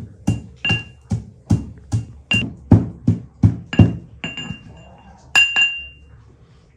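Metal pestle pounding in a metal mortar, crushing spices: steady strikes about two and a half a second, each with a short metallic ring. The strikes slow to a few last blows about four to five and a half seconds in, the last ringing on a little longer.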